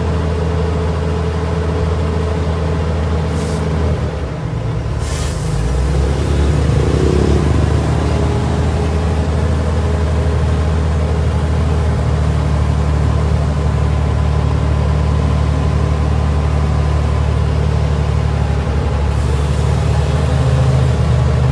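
A vehicle's engine running with a steady low hum, heard from inside the vehicle. A couple of short knocks come about three and five seconds in, and the engine note drops and then settles again soon after.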